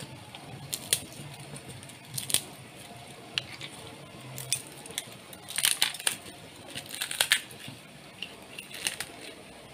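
Freshly fried thattai, crisp rice-flour crackers, cracking and crumbling as they are broken apart by hand: a string of sharp snaps, thickest around six and seven seconds in. The crackle is the sign that they have fried crisp.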